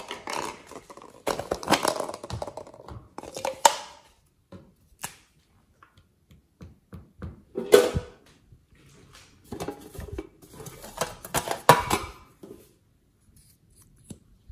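Hard plastic novelty slime containers handled: crackling, clacking plastic in several bursts, with sharp knocks about eight and twelve seconds in.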